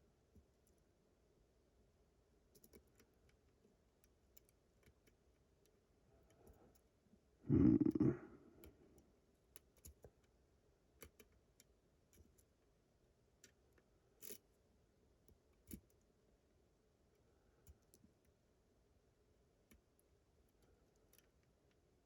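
Faint, irregular small clicks of a disc detainer pick turning the discs inside an Abus GDS padlock while it is being picked. A brief, louder, dull sound comes about a third of the way through.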